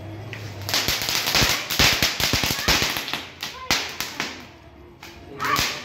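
Ground spark-fountain firework going off: a hissing spray crackling with many quick sharp pops, starting under a second in and dying away after about four seconds, then one more short burst near the end.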